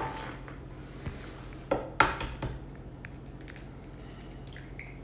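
A fresh egg being cracked to separate its yolk: a sharp crack about two seconds in, with a few softer clicks and taps around it.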